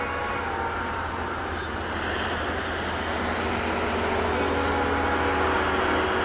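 Diesel locomotive running as it approaches, its engine a steady low rumble with a few steady whining tones above it, growing gradually louder.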